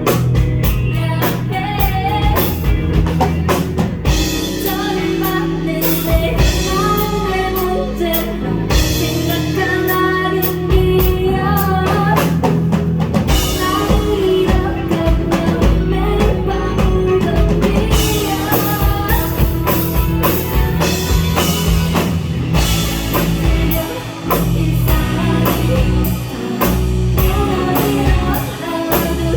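Live indie rock band playing: drum kit, electric bass and electric guitar, with a melodic lead line over a steady drum beat.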